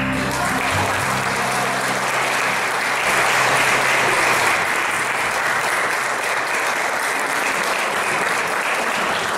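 An audience applauding steadily, with the last held notes of the music dying away during the first few seconds.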